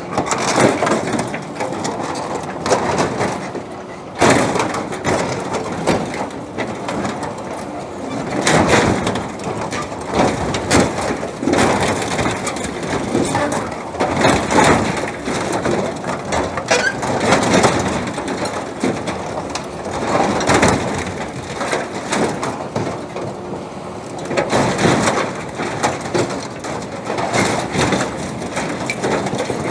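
Excavator grab crushing and wrenching apart an old harvester: heavy sheet metal and cast iron crunching and grinding, with repeated sharp cracks and clanks that come in louder surges every few seconds.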